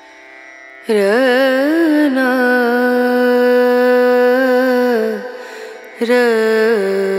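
Background music: a long-held, ornamented melody line enters loudly about a second in after a faint start. It breaks off briefly around five seconds in and resumes.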